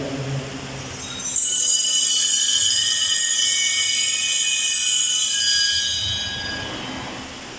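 Altar bells rung at the elevation of the host during the consecration of the Mass: a jangle of many high ringing tones that starts about a second in and dies away near the end.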